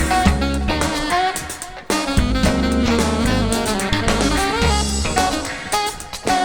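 Live band music: a saxophone lead over drum kit and bass, in a jazz-funk groove.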